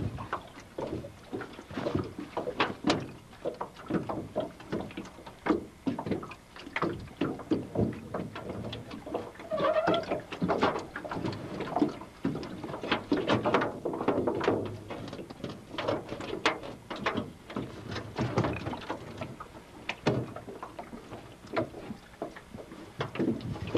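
Water slapping and lapping against the hull of a small aluminium boat, giving a run of irregular knocks and clicks several times a second.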